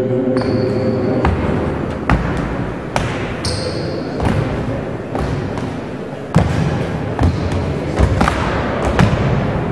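Sports shoes landing on a wooden sports-hall floor as athletes jump over a row of low hurdles: a series of unevenly spaced thuds.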